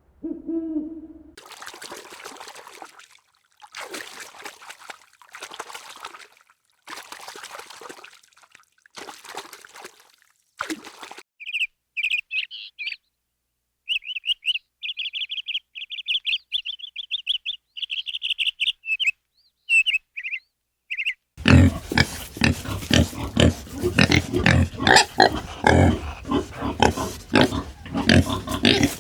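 Animal calls one after another. First comes a string of short breathy bursts, then several seconds of rapid high-pitched chirping. From about two-thirds of the way through there is a dense, loud run of low grunting calls.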